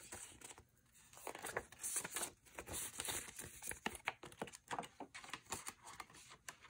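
Faint rustling and crinkling of paper prop bills being handled and slid into a clear plastic binder envelope, in short irregular crackles with a brief lull about a second in.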